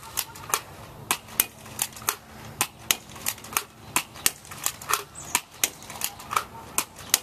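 Nerf gun working rapidly: a fast run of sharp plastic clicks coming in pairs, about one pair every 0.7 seconds.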